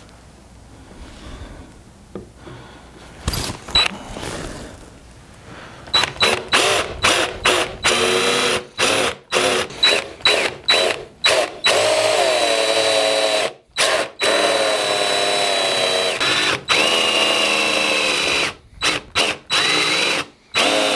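Cordless drill boring into an end-grain cherry cutting board with a Forstner bit. It starts with a few quiet knocks, then about six seconds in comes a string of short trigger pulses, about two a second, followed by longer runs with a few brief stops. The motor's pitch sags as the bit bites into the wood.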